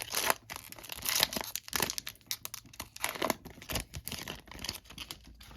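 A foil trading-card pack wrapper being torn open and crinkled: a run of irregular rips and crackles that stops near the end.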